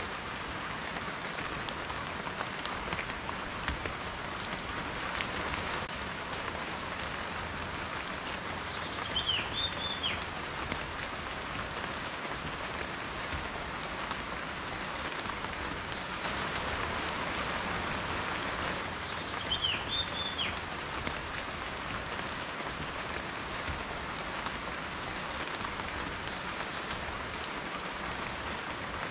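Steady rain, many drops pattering on a surface. Twice, about ten seconds apart, a short high chirp-like call sounds through it.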